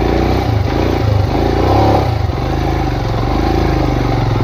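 Royal Enfield Himalayan's single-cylinder engine revving up and down several times in the first two seconds, then running more steadily, as the motorcycle labours up a rocky dirt track.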